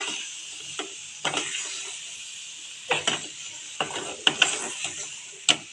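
A utensil stirring and scraping a pan of melted jaggery and coconut as ground chana dal is mixed in, with irregular scraping strokes over a steady sizzle.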